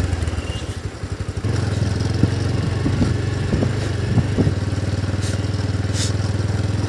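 Steady low drone of a small vehicle engine running at low speed. It wavers and dips about a second in, then runs evenly.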